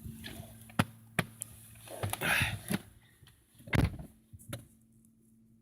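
Car door opened, someone climbing into the seat, and the door shut with a heavy thud just under four seconds in, after which the outside sound turns duller. The idling engine hums steadily underneath.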